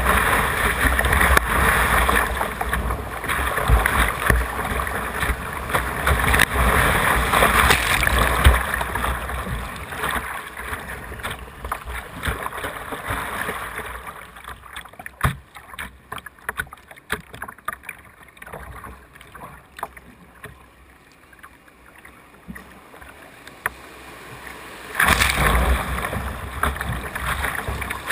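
Whitewater rushing and splashing over a kayak's bow, loud through the rapid at first. It quietens to scattered small splashes across calm water about halfway, then rises suddenly again as the kayak enters another rapid near the end.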